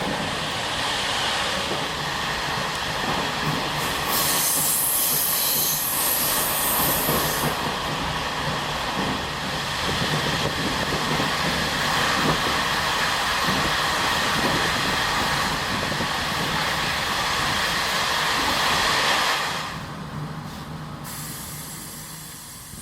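Old non-air-conditioned passenger coaches of a Taiwan Railways ordinary train running on the rails, with a steady rumble and a high-pitched wheel squeal from about 4 to 7 seconds in. The sound grows quieter near the end.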